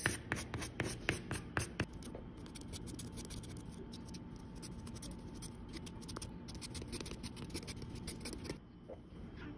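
Paint-laden metal fork tines dabbing and scratching on paper, a quick run of small scratchy taps that is densest in the first couple of seconds and then thins out.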